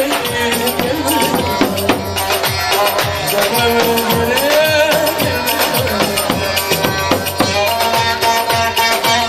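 Folk dance music at full volume: a melody instrument sliding between notes over a steady, fast drum beat.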